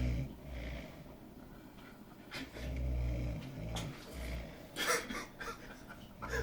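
Deep, rumbling snoring in a slow rhythm: one long snore a couple of seconds in, a short one about a second later, and the next starting at the very end.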